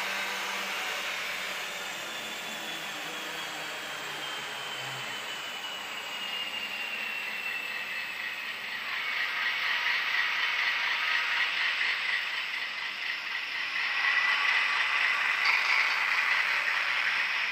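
TT-scale (1:120) model of a class 740 diesel locomotive running round the track with a train of Falls coal hopper wagons: the small electric motor and gears whirring, with the wheels running on the rails. A faint high whine slowly drops in pitch in the first half. The running noise grows louder from about halfway on as the train comes closer.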